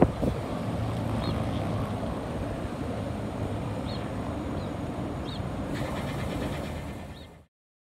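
Steady rumble of road traffic and a distant freight train, with a few short high chirps scattered through it. The sound fades and cuts off near the end.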